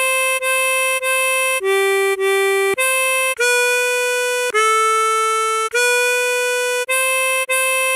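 Tremolo harmonica playing a slow melody of single held notes, one after another, with several repeated notes and a dip to a lower note about two seconds in.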